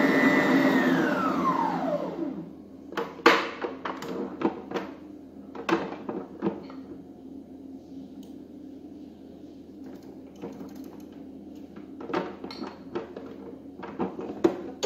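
Electric stand mixer motor running with its whisk, then switched off, its whine falling in pitch as it winds down about two seconds in. Then scattered clicks and knocks as the mixer head is raised and the steel bowl is handled.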